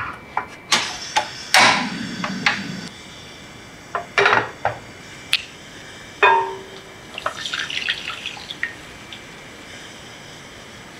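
Kitchen handling sounds: a run of knocks and clicks as a portable gas stove and a pot are handled, a ringing clank about six seconds in, then a brief crackling spatter as water is poured into the pot of melting butter.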